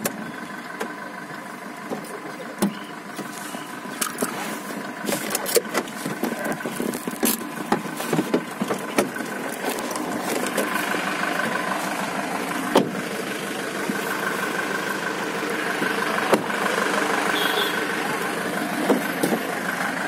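Suzuki car's engine running, heard from inside the cabin as a steady hum. Many short clicks and rustles come from the phone being handled against clothing.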